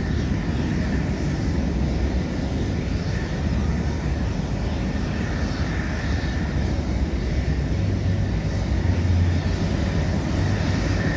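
Jet engines of Blue Angels F/A-18 Super Hornets, a steady rumbling roar from the air display that swells a little near the end.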